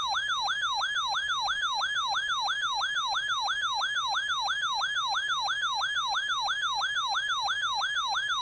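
Radio Shack 12-993 weather radio's built-in alert siren sounding for a Severe Thunderstorm Warning: one electronic tone that falls in pitch and jumps back up, over and over, about three times a second.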